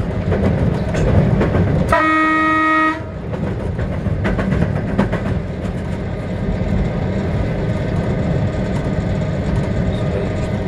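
Train running on the rails, heard from the driver's cab: a steady rumble with wheel clicks over rail joints and points. About two seconds in, a single train horn blast lasting about a second.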